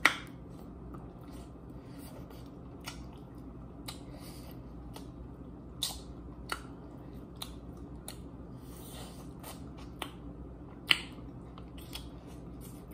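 Someone eating chicken wings close to the microphone: scattered wet mouth clicks and smacks as fingers are licked and meat is pulled off the bone, over a steady low hum.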